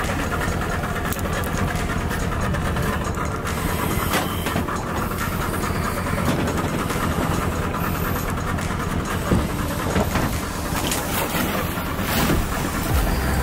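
Boat engine idling steadily, with a splash near the end as a scuba diver goes over the side into the water.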